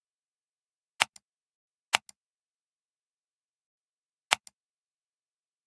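Three computer mouse clicks, each a sharp click followed a moment later by a fainter one as the button is pressed and released, with complete silence between them.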